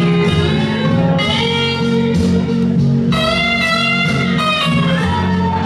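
Guitar-led band music in a blues style: electric guitar notes over a steady repeating bass line.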